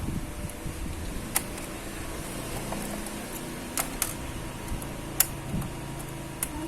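Small laptop parts being handled and fitted by hand, giving about five sharp, separate clicks and taps over a steady low hum.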